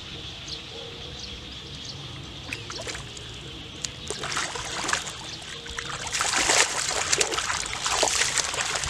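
Hands splashing in shallow muddy water while grabbing at a fish. The splashing is light at first and grows into heavy, continuous splashing from about halfway through.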